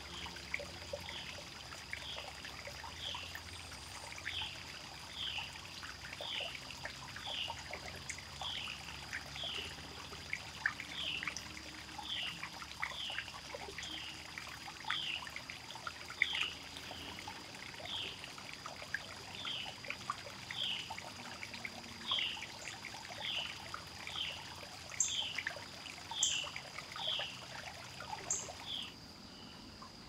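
Woodland ambience: a steady high whine of cicadas, with a bird repeating a short down-slurred call note about once a second and faint crackling in the undergrowth. The calls stop just before the end.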